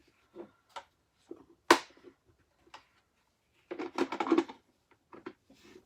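Plastic parts of a Hoover Tempo bagless upright vacuum being handled, with scattered clicks. There is one sharp snap a little under two seconds in and a burst of rattling around four seconds in as the filter and dirt cup are worked back into place.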